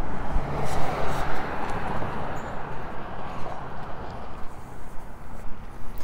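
Street traffic: a passing car's tyre and engine noise, loudest about a second in and then slowly fading.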